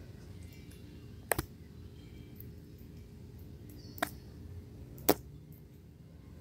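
Sharp clicks over a low, steady rumble: a quick double click about a second in, then single clicks at about four and five seconds, with a brief high chirp just before the second click.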